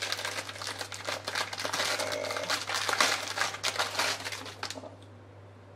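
The plastic sleeve around a pack of brushes crinkles and crackles densely as it is handled and pulled open. The crackling stops near the end.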